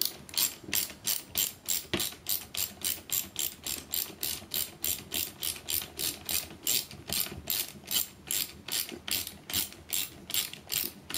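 Ratchet wrench with a socket extension clicking in an even run, between three and four clicks a second, as a small bolt is wound out.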